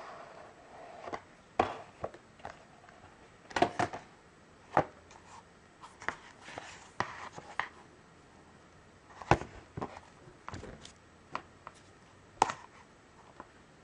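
DVD box-set packaging being handled: plastic cases clacking and tapping against each other and the wooden tabletop, about six sharp clacks among lighter taps, with light rustling in between.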